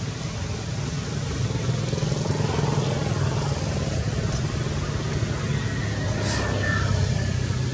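Engine noise of a motor vehicle over a steady low outdoor rumble, getting louder about a second and a half in, with a short sharp click about six seconds in.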